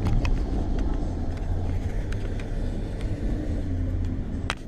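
Steady low rumble of a moving road vehicle, with a few faint clicks and a sharper click near the end.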